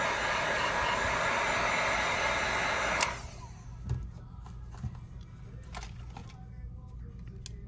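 Hot-air gun blowing steadily, switched off with a click about three seconds in; then a few light clicks and taps of small tools.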